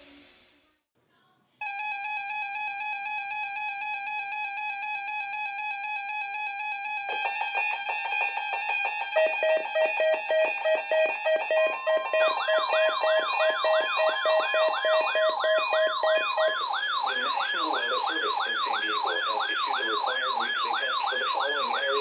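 Layered electronic alarm tones building up: a steady tone starts after a short silence, pulsing beeps join partway through, and a fast warbling siren sweep comes in about halfway and runs on.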